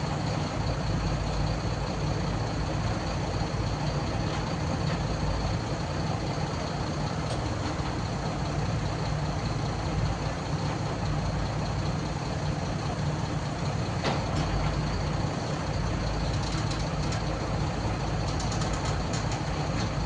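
Excavator's diesel engine running steadily at an even, unchanging pitch and level.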